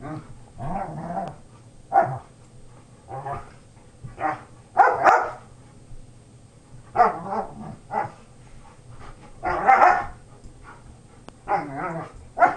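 Old English Sheepdogs barking and growling while play-wrestling, in short bursts about every second or so; the loudest barks come about five and ten seconds in.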